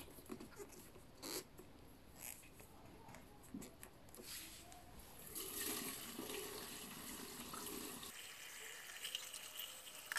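Petrol pouring from a plastic canister through a funnel into a motorcycle's plastic fuel tank: a steady splashing hiss from about five seconds in that thins out after about eight seconds. Before it, a few faint clicks and knocks from hands at the fuel tap.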